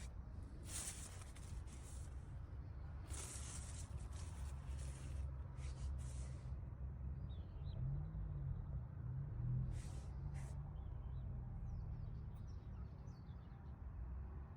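Mint stems and leaves rustling in a few short bursts as the plants are cut and gathered by hand, over a steady low rumble.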